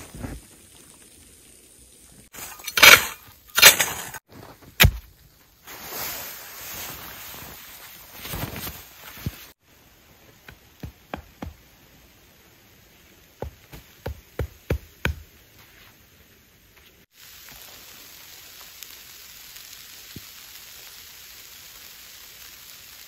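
Camping tarp fabric being handled with a few loud rustles. Then a string of about ten sharp knocks over some five seconds as a hatchet drives a tent stake into snowy ground. A steady soft hiss follows.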